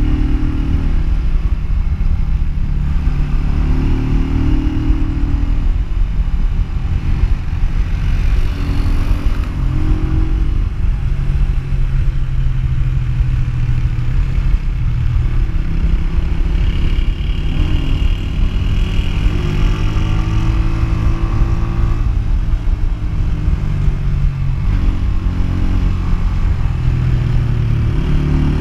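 Honda CG125's single-cylinder four-stroke engine running steadily while riding, its pitch rising and falling every few seconds with throttle and gear changes, over a steady low wind rush on the microphone.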